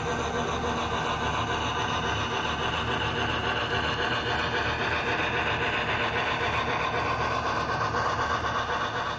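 Steady running sound of an HO-scale Union Pacific articulated steam locomotive model and its tender moving along the layout.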